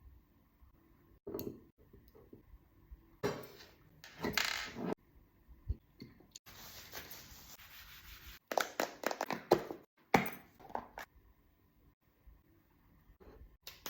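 Kitchen handling sounds while cooking: irregular clinks and knocks of utensils and dishes, a couple of longer scraping or rustling passes, and a steady hiss lasting about two seconds near the middle.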